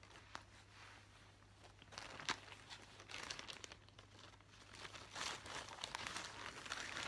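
Paper and cross-stitch fabric being handled and folded: irregular rustling and crinkling, with a sharp tap about two seconds in.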